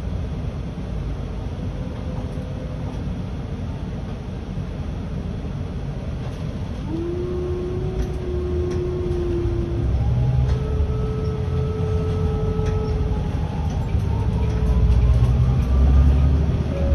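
Volvo 7900 Hybrid city bus under way: a low rumble of drivetrain and road noise with a held whine that comes in about seven seconds in, then higher whining tones that rise in pitch near the end as the bus gets louder.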